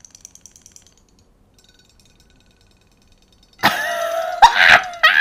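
Faint high-pitched whir of a battery robot fish toy's tiny motor, dying away after about a second, then near silence. About three and a half seconds in, a sudden loud onset as the toy goes into a glass bowl of water, and a woman lets out a loud, excited high-pitched squeal.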